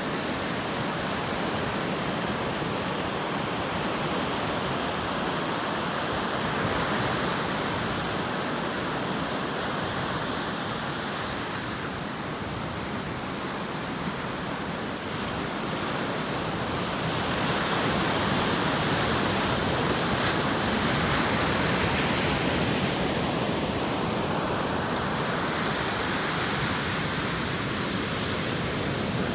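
Atlantic Ocean surf: waves breaking and washing ashore in a continuous rushing, which swells louder for several seconds past the middle and then eases.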